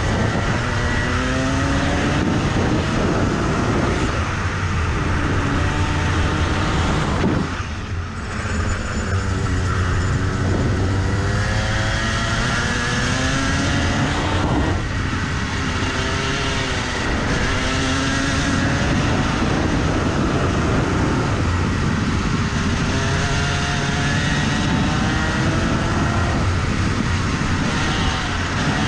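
Rotax two-stroke single-cylinder kart engine at full throttle, its pitch climbing again and again as the kart accelerates out of corners and dropping back when the throttle is lifted, most clearly about eight seconds in.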